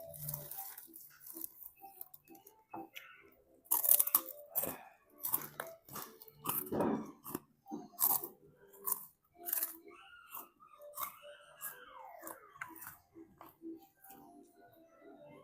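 A person eating, chewing with irregular crunches and bites.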